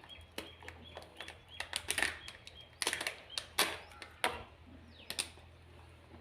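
Crinkly snack packaging being handled and torn open by hand: irregular crackles and sharp clicks, some louder than others.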